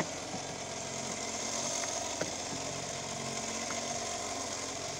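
An engine aboard a fishing boat running steadily, a low even hum, with a few faint knocks, the clearest about two seconds in.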